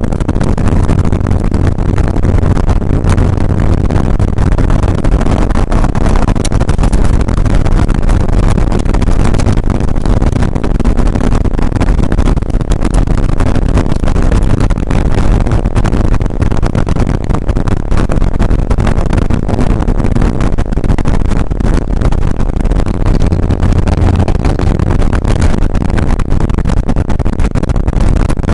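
Porsche 911SC's air-cooled 3.0-litre flat-six running loud and steady as the car drives at speed, heard from inside the cabin, with road and tyre noise.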